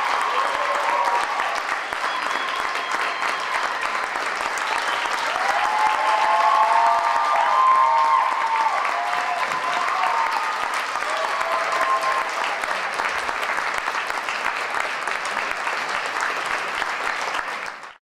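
Audience applauding steadily, with calls from the crowd rising over the clapping around the middle. The sound cuts off abruptly at the very end.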